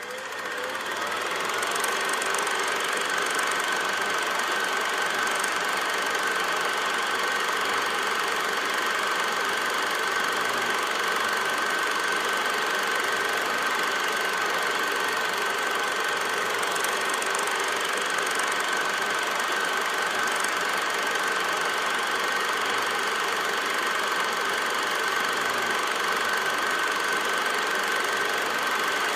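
A steady mechanical running noise, engine-like, with a steady high whine through it. It fades in over the first couple of seconds and then holds unchanged.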